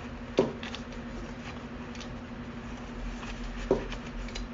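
Two light knocks about three seconds apart, over a steady low hum: an exhaust fan's backdraft damper flapping in the wind.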